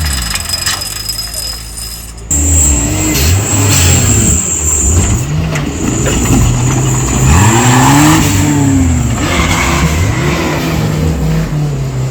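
Off-road 4x4 engines revving up and down repeatedly under load, with the sound changing abruptly about two seconds in.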